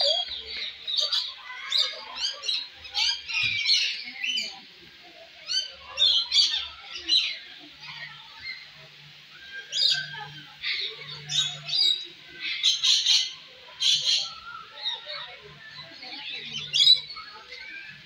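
A flock of small aviary birds chirping and chattering together: many short, high calls overlap, with denser, louder bursts now and then.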